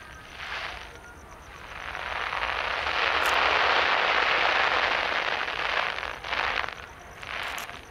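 Distant fireworks crackling: a dense crackle swells up about two seconds in, holds for a few seconds and fades, with shorter bursts of crackling before and after.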